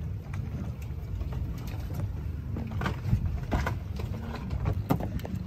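Steady low rumble of wind and water on a small open boat at sea, with a few light knocks and clicks about three and five seconds in.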